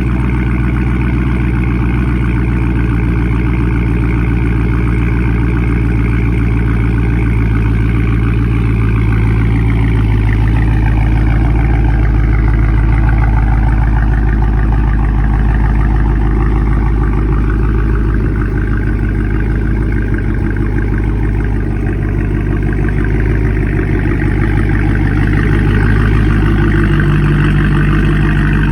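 Dodge Charger Scat Pack's 392 HEMI V8 running steadily, most likely idling, its note shifting a little in pitch twice.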